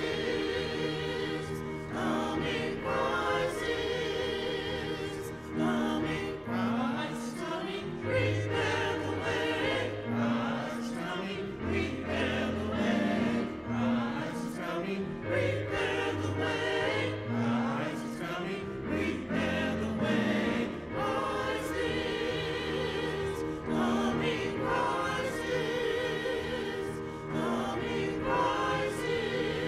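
Church choir singing a slow hymn in several voices over instrumental accompaniment, with low bass notes held underneath.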